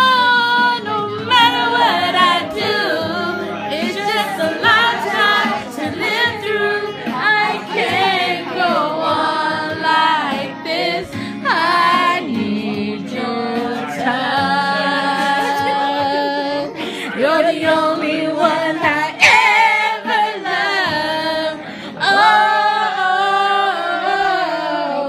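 Karaoke: voices singing along with a backing track, the singing louder than the music.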